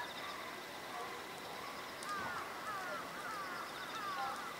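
A bird calling a quick run of short downward-sliding notes, starting about two seconds in.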